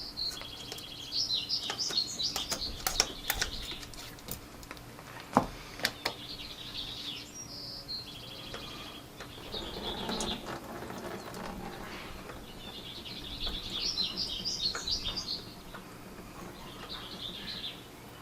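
Birds chirping in bursts of rapid high twittering, several times over. A few sharp clicks and knocks come in between, the loudest a single knock about five seconds in, with a short low rustle about ten seconds in.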